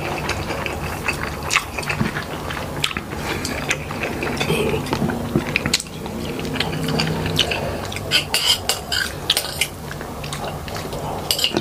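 Close-up eating sounds: chewing and crunching of crispy fried beef pata, an irregular run of crisp clicks, busiest about eight seconds in.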